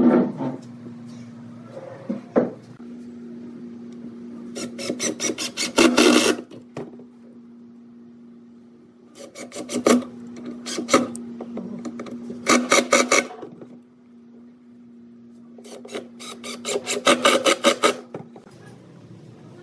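Cordless impact driver sinking wood screws into pine boards, in four bursts of rapid rattling hammering, each a second or two long.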